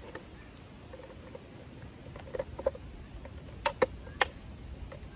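Plastic back cover being pressed onto a 2006 Nissan Altima side-view mirror housing: several sharp plastic clicks as its clips snap into place, between about two and four seconds in.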